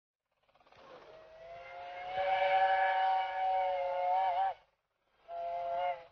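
Miniature steam locomotive's whistle sounding a chord of several notes at once: one long blast that wavers just before it stops, then a short blast.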